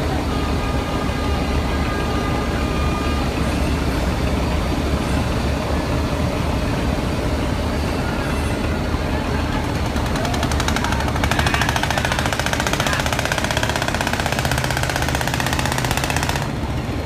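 Large river boat's engine running steadily under load, over churning propeller wash. From about ten seconds in, a fast rattling clatter joins and cuts off suddenly near the end.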